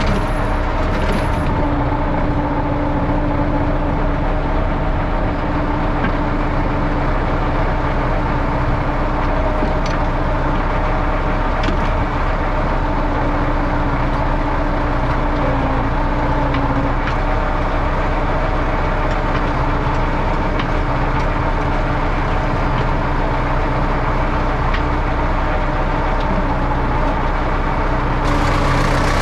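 YuMZ EO-2621 tractor excavator's diesel engine running steadily under work, with a steady hum and a few faint ticks. A brighter hiss comes in near the end.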